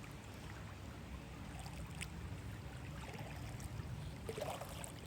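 Faint running water, a low steady wash with a few small ticks over it.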